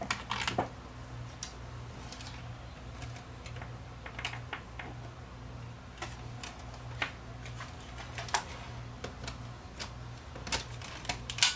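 Irregular light clicks and taps of small plastic and metal camcorder parts being handled and fitted by hand, with a few louder clicks near the start and near the end, over a steady low electrical hum.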